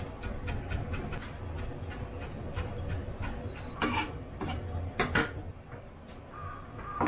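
Kitchen knife chopping food finely on a wooden cutting board: a quick run of light taps, then a few louder knocks and scrapes about four and five seconds in as the chopped food is gathered and the knife is laid down.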